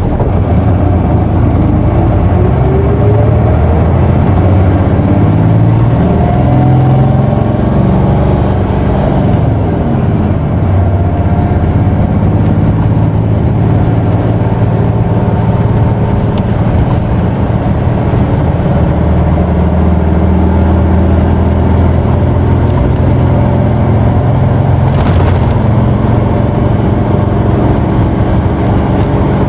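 Diesel engine of an Isuzu Erga PKG-KV234L2 city bus, heard from inside the cabin, revving hard under full acceleration with its pitch climbing for the first several seconds. About nine seconds in, the revs drop with a gear change, and the engine then pulls on at a steady high drone.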